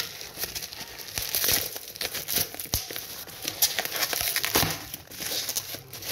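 Black plastic shipping packaging being crumpled and torn open by hand: an irregular crinkling full of sharp crackles.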